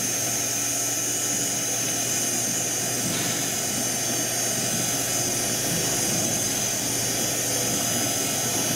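Ewag RS12 insert grinder running under power with its power oscillation engaged: a steady machine hum with a high, even whine.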